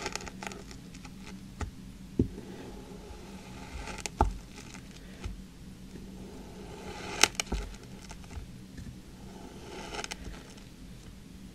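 A knife blade slicing through kinetic sand: soft, crumbly scraping as it cuts a series of lines, broken by scattered short, sharp clicks. The loudest click comes about seven seconds in.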